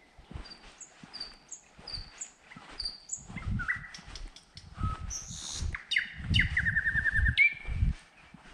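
Small birds singing: a short high call repeated about every half second, then louder whistled calls and a fast trill from about three seconds in. Dull low thumps run underneath.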